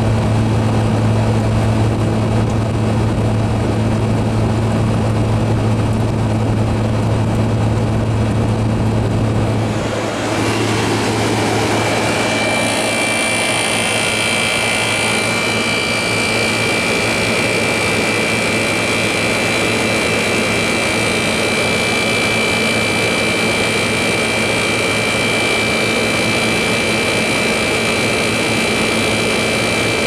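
Carrier International Series 27,500 BTU window air conditioner running: a steady low hum at first, then about a third of the way in the low hum gives way to a louder rush of air with a steady high whine.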